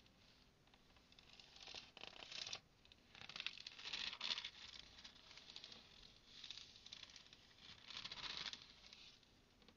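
Thin book pages being turned and rustled by hand, in several soft crackly bursts, loudest about four seconds and eight seconds in.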